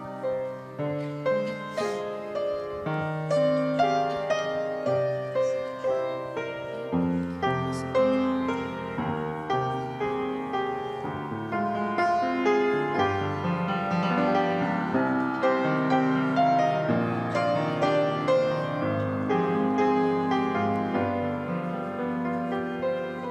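Piano introduction to a hymn: sustained chords and a slow melody, played steadily with regular note attacks.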